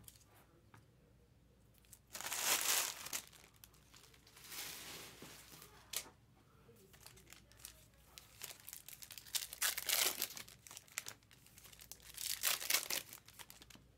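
Trading card packs being torn open and their wrappers crinkled, in several separate bursts. The loudest comes about two seconds in, and there is a sharp click around six seconds.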